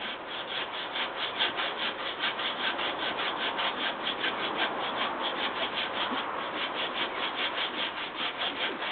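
Hand saw cutting through wood in quick, steady back-and-forth strokes, about five rasps a second.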